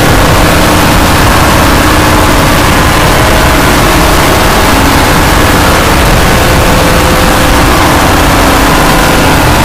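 Logo theme audio boosted and distorted until it clips into a constant harsh wall of noise. A few faint held tones show through underneath.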